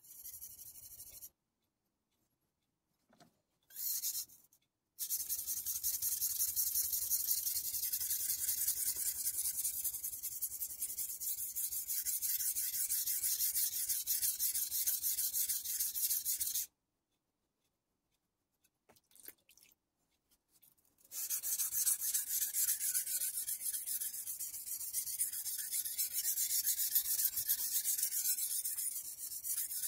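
Steel blade of a Kai Shun Gold chef knife scraping back and forth on the wet, coarse 300-grit side of a Kai combination whetstone, in fast, even sharpening strokes. A few short scrapes come in the first seconds, then a long run of strokes that stops for about four seconds past the middle and resumes.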